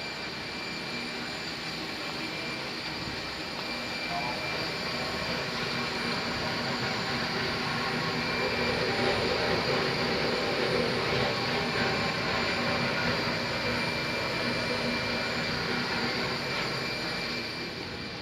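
Industrial laminating machine running steadily, a continuous mechanical rumble with a thin high whine, getting somewhat louder in the middle and easing off near the end.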